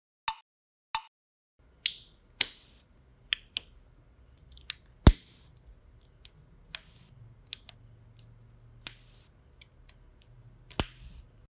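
Lego Technic plastic pieces clicking and knocking as they are handled and pressed together: a series of sharp separate clicks, the loudest about five seconds in.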